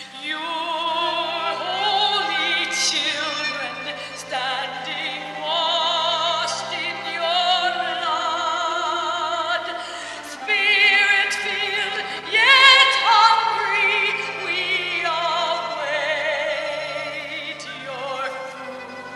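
A soprano singing in operatic style with wide vibrato over held low accompaniment notes. The singing swells to its loudest with high notes a little past the middle.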